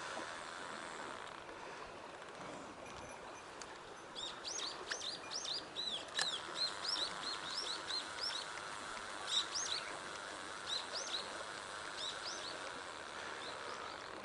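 A small songbird singing a long run of quick, high chirping notes, beginning about four seconds in and lasting about eight seconds, over the steady rush of a mountain stream.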